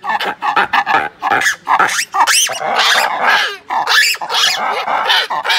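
Ruffed lemurs calling in a loud chorus of harsh, rapid barking calls.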